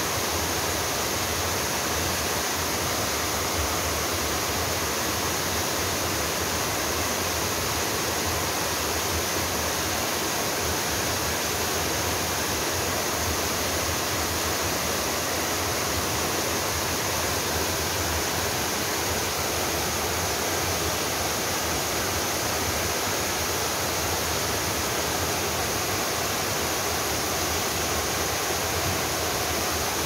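Waterfall pouring down a steep rock slab into a plunge pool: a steady, unbroken rush of falling water.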